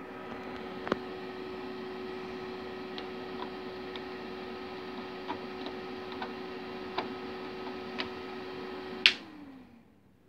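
Steady hiss and hum from a hi-fi amplifier system with the music stopped, with a few small clicks. About nine seconds in, a loud switch click, and the hum drops in pitch and dies away as a power amplifier is switched off.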